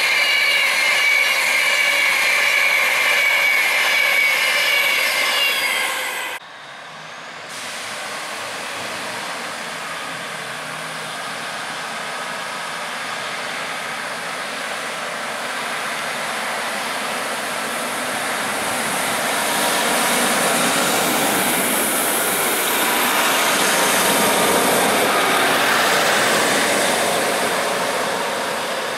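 A Virgin Trains Class 390 Pendolino electric train passing at speed, with a high whine that falls slightly in pitch and a loud rush of noise. This cuts off about six seconds in. Then a Northern Rail Class 150 diesel multiple unit approaches and passes, its engine and wheels getting steadily louder to a peak with a high hiss of wheels on rail about two-thirds of the way through, then easing off as it draws away.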